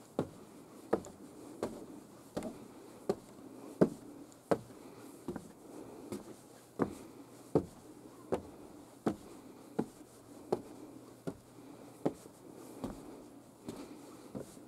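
Footsteps climbing a wooden staircase and landing of an observation tower, a knock at each step at a steady walking pace, about four steps every three seconds.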